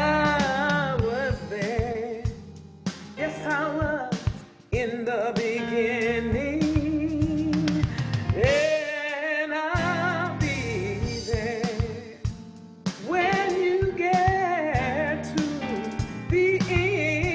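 Gospel worship song: a woman sings a verse with heavy vibrato over instrumental accompaniment with a steady bass and drums.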